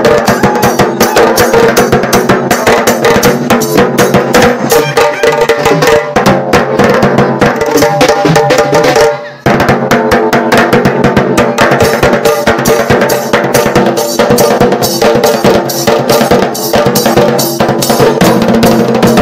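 A dhol tasa drum band playing a fast, dense rhythm of stick strokes on barrel drums. The playing breaks off for a moment about nine seconds in, then carries on.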